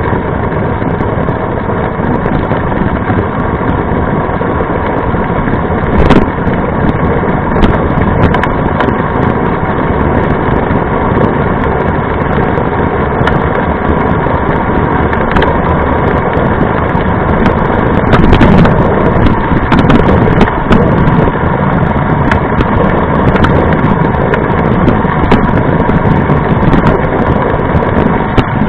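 Wind buffeting a bike-mounted camera, with mountain bike tyres humming on asphalt at speed, loud and steady. Sharp knocks and rattles come through the mount over bumps, a few around six and eight seconds in and a cluster near eighteen to twenty seconds.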